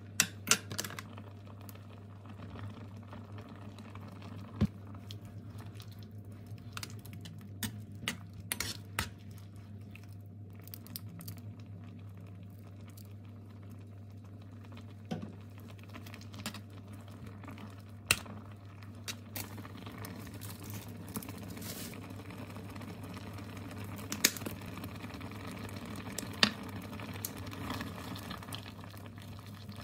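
Creamy sauce simmering in a nonstick frying pan on an induction cooktop over a steady low hum. Scattered sharp clicks and taps come from a spoon, a sauce bottle and tongs against the pan. The simmering grows a little stronger in the second half.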